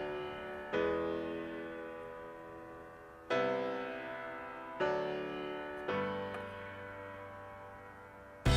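Background piano music: slow chords struck one at a time, each left to ring and fade, every one to two and a half seconds. At the very end a loud clatter cuts in.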